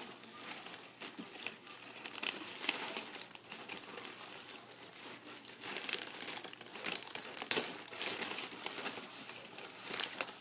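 Plastic cellophane wrapping on an Easter basket crinkling and tearing as it is pulled off by hand, a busy, irregular crackle.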